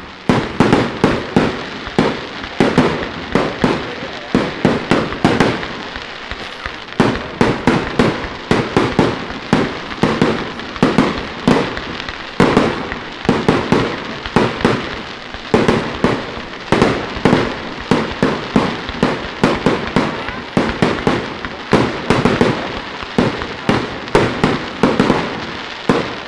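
Consumer firework cake firing a fan of crackling-willow-to-green-star shots: a steady run of launch thumps and breaking shells, about two or three a second, with crackle between them. It stops near the end.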